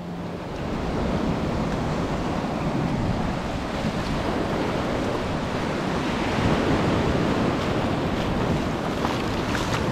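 Sea surf washing steadily on a beach, with wind buffeting the microphone.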